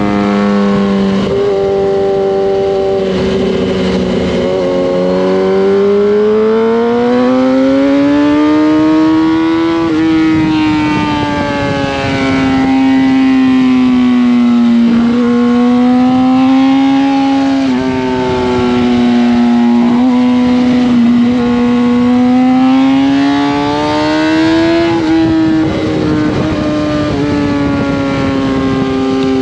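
Kawasaki ZX-10R inline-four engine heard from onboard while lapping a racetrack. Its pitch climbs and falls through the corners, with sudden jumps at each gear change.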